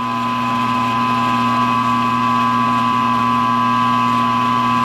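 Milling machine spindle running steadily as a number 41 drill bit bores out the old tritium vial hole in a steel night sight, deepening it so a new 1.5 mm vial will sit flush. The sound is an even hum with a steady whine above it.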